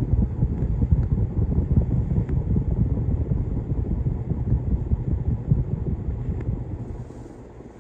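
1981 Hunter Original 36-inch ceiling fan running on high at about 300 rpm, its strong downdraft buffeting the microphone as a loud, uneven low rumble over the motor's hum. The rumble fades about seven seconds in.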